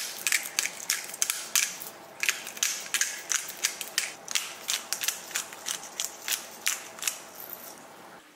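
Hand-twisted salt and pepper grinders crushing grains over raw chicken breasts: a run of sharp, crunchy clicks, about three strong ones a second, that stops about seven seconds in.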